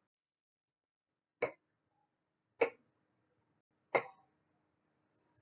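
A woman's voice saying a short voiceless consonant sound three times, about a second and a half apart, each one brief and breathy, modelling a speech sound for articulation practice.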